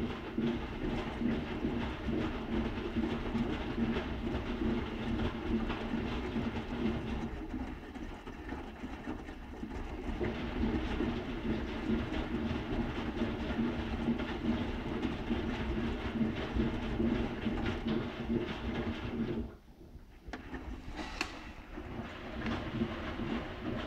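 Schulthess Spirit eMotion 7040i washing machine in its main wash: the drum turning with a steady motor hum and the rumble of tumbling wet laundry. Near the end it stops for about a second, then starts turning again.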